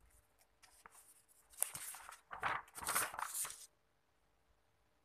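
Sheets of paper being handled and turned over, rustling in several bursts that stop about three and a half seconds in.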